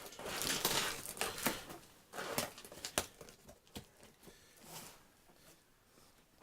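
Packaging being handled and opened: crinkling, rustling and tearing of wrapping in bursts, with a couple of sharp clicks about halfway through, then quieter handling.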